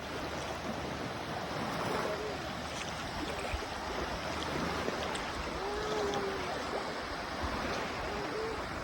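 Sea waves washing on a beach, a steady rushing surf, with faint distant voices calling now and then.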